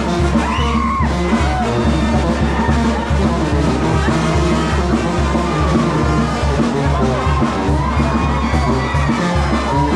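Loud music with a steady beat and drums, with crowd voices mixed in.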